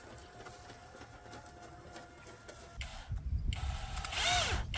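Cordless drill run in one short burst near the end, its motor whine rising and then falling as it drives a screw into the coop's wooden wall. Wind rumbles on the microphone through the second half.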